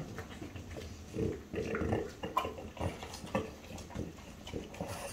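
French bulldog sniffing and snuffling at the floor in short, irregular bursts as it noses along a trail of kibble.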